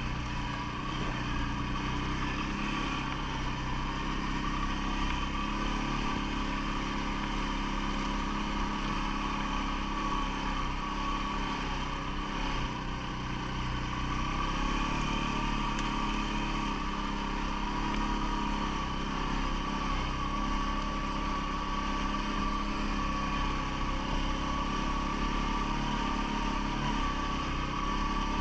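CFMOTO ATV engine running steadily at a fairly even speed, with no sharp revs.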